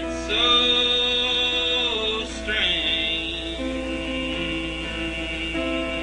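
Live acoustic guitar strumming under a man singing one long held note, which bends downward and breaks off a little after two seconds in; the guitar chords ring on alone after it.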